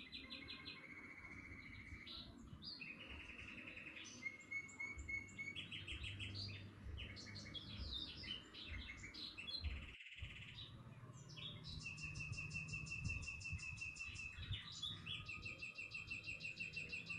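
Several birds chirping and singing at once, overlapping series of rapid repeated notes and trills, with the sound cutting out for a moment about ten seconds in.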